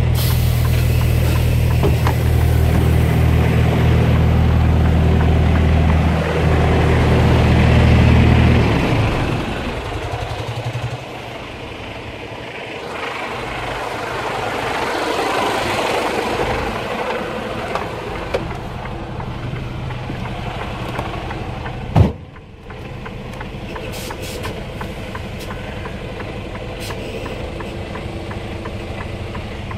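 Mercedes-Benz Antos 1833 truck's 10.7-litre six-cylinder diesel running, a deep steady drone for about the first nine seconds that then drops away to a quieter engine sound. A single sharp knock stands out a little over twenty seconds in.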